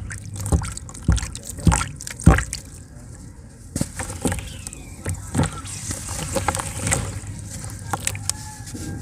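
Wet cement being crumbled by hand in a plastic tub of water: water sloshing and trickling, and soaked pieces splashing into the water as they break off the block. There are four sharp knocks in the first two and a half seconds.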